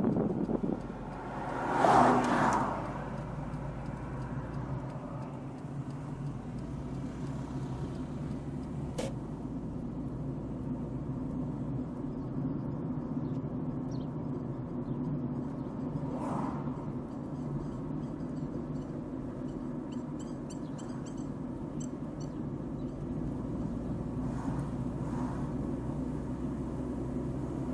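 Steady road and engine noise of a car being driven, a low even rumble with a hum. About two seconds in there is a brief louder swell, and there are two fainter ones later on.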